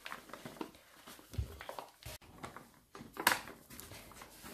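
Flour being poured from a paper bag into a glass mixing bowl: faint rustling of the paper bag, with a short, sharper rustle or knock about three seconds in.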